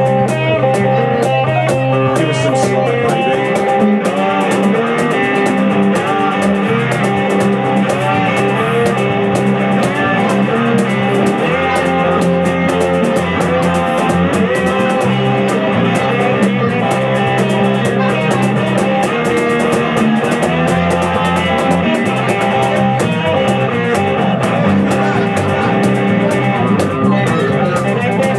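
Live band playing an instrumental break, with guitar carrying the lead over a steady bass line and percussion.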